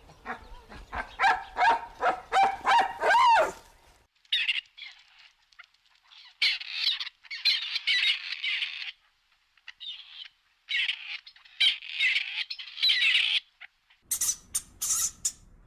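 Animal calls in three spliced stretches: a run of pitched calls for about four seconds, then about ten seconds of high chirping in bursts, then sharp high squeaks near the end.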